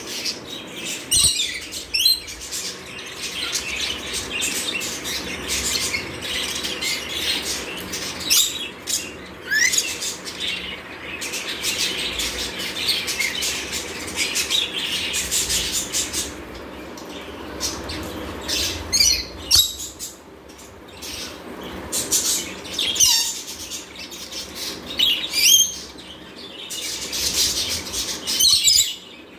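Caged rainbow lorikeets making short, shrill screeches and chattering calls, repeated many times with irregular gaps.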